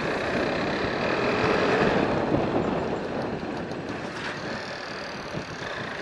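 Motorcycle riding noise from a camera on a moving KTM RC 390: wind rushing over the microphone mixed with the bike's single-cylinder engine, swelling about two seconds in and then easing off.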